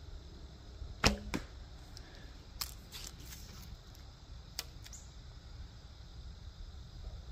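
A Sanlida traditional longbow being shot: the sharp snap of the string on release about a second in, followed a quarter second later by the arrow striking the target. A few fainter clicks follow later.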